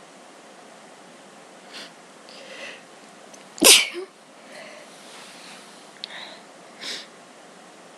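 A person sneezes once, sudden and loud, a little before the middle, after a quick breath in, with short sniffs and breaths before and after it. Allergic sneezing set off by a Christmas tree.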